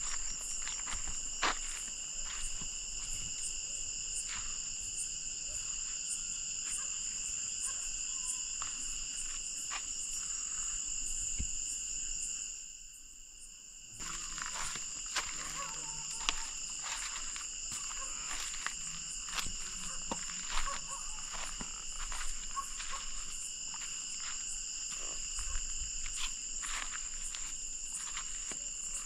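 Night insect chorus, with crickets trilling steadily at several high pitches, under scattered faint clicks. The chorus drops away for about a second and a half near the middle, then comes back.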